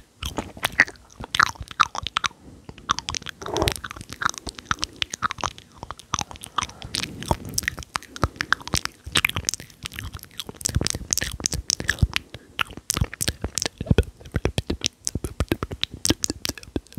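Intense close-miked ASMR mouth sounds: a dense, unbroken run of sharp wet clicks and smacks from the tongue and lips.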